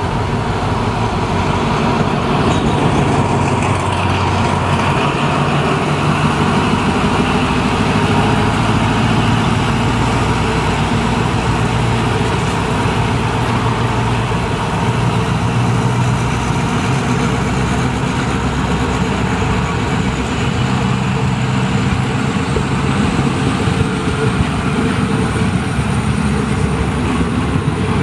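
A diesel locomotive passing close by, followed by a long train of passenger coaches rolling past with a steady rumble and clatter of wheels on the rails. In the second half a faint high whine rises slowly in pitch.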